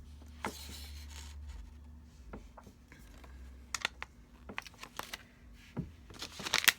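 A blind-bag wrapper and a paper checklist being handled by hand: scattered small clicks and rustles, with a louder crinkle near the end.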